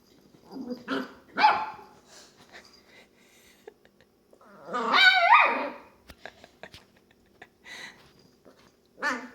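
Longhair dachshund puppy making playful noises while playing: two short yaps about a second in, a longer wavering bark-whine of about a second around the middle, and another short yap near the end, with faint rustling between them.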